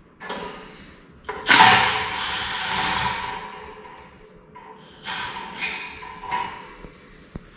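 Metal belt-guard cage of a shop air compressor scraping and rattling as it is worked off, with one long ringing scrape about a second and a half in and shorter scrapes later.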